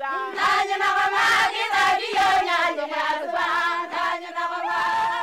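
A group of women singing together in chorus, their voices holding and bending in pitch, over sharp beats about twice a second.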